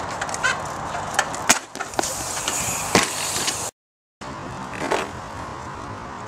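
Trials bike clattering, with several sharp knocks and clacks of the tyres and frame over steady outdoor background noise. The sound drops out to silence for about half a second just past the middle.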